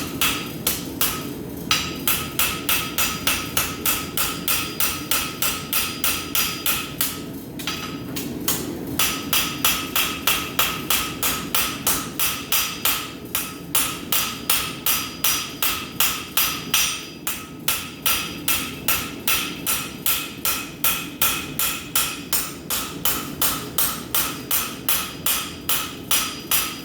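Rounding hammer striking hot steel on an anvil in a steady rhythm of about three blows a second, each blow ringing, with two short pauses. This is blacksmith forging, drawing out and shaping the bar.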